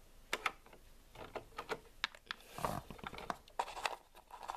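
Small plastic pet figurines hopped by hand along a wooden floor: a run of irregular light clicks and taps, with a duller bump a little past the middle.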